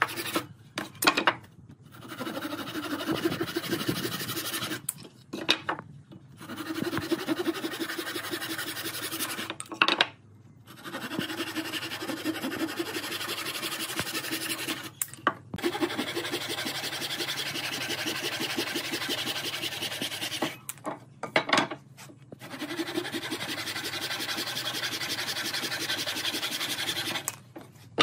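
Handsaw with a long wooden handle cutting into the end of a wooden board with rapid back-and-forth strokes, a steady rasp. The sawing comes in several long runs, broken by short pauses with a few sharp knocks.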